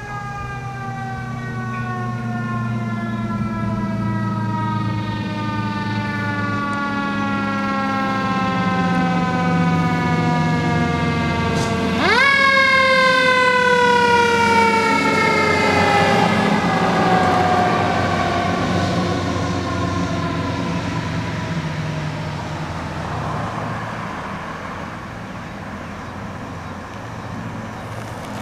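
Federal Q2B mechanical siren on a 1990 Pemfab/3-D pumper fire engine, winding slowly down in pitch, then wound up sharply about twelve seconds in as the truck passes, and coasting down again while it fades away. The truck's engine rumbles low underneath.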